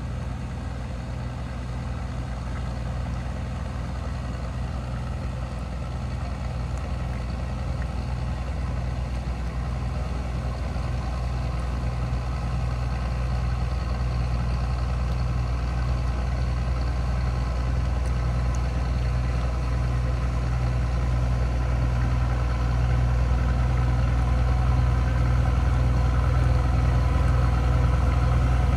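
Engines of large wooden cargo boats travelling on the river: a steady low hum that grows slowly louder as the boats approach.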